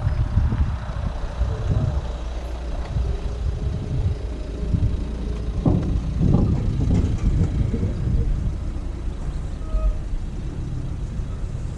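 Car engine and tyres as a car rolls slowly past close by, getting louder about halfway through, over a steady rumble of wind on the microphone.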